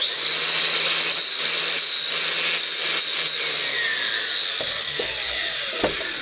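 Angle grinder with a flap disc grinding the steel cutting tip of a damaged auger bit to restore its edge. A loud, steady, high-pitched grinding starts suddenly, and a tone in it falls steadily in pitch through the second half.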